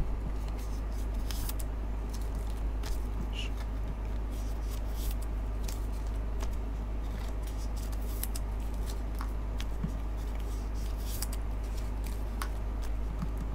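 Trading cards and their packaging being handled out of view: scattered faint clicks and light rustles over a steady low hum.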